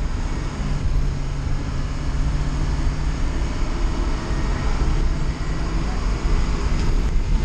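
Inside the cabin of a 2006 Ford E450-based minibus under way: steady engine drone mixed with road noise.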